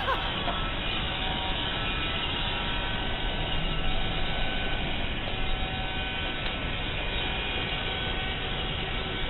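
Roomba robot vacuum running: a steady whirr of its motor and brushes with a faint hum.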